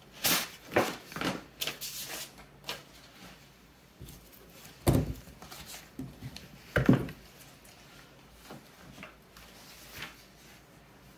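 Paper mailer envelope and a flat cardboard comic mailer being handled: rustling and scraping in the first couple of seconds, then two sharp knocks about five and seven seconds in as the cardboard is handled and set on the table, with faint rustles after.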